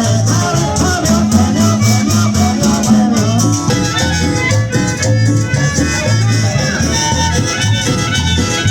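Latin dance music with a steady bass beat and a shaker keeping time.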